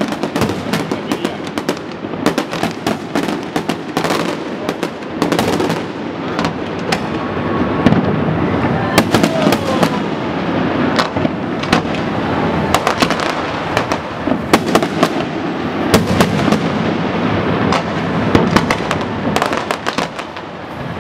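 Fireworks display: aerial shells bursting in a dense, continuous run of sharp bangs and crackling, with louder booms now and then, heaviest in the middle stretch.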